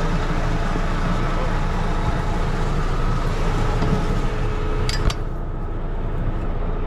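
Rosenbauer firefighting water tanker's engine and pump running steadily, pump engaged while water is sent up to the roof turret. A short clatter about five seconds in, as the aluminium rear ladder is climbed.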